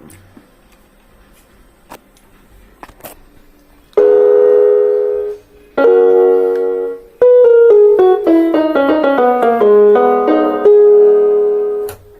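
Casio CTK-2550 electronic keyboard sounding in piano voice: two held chords, a descending run of notes, and a final held chord. It is producing sound again after a no-power, no-sound fault. The first few seconds hold only a few faint clicks.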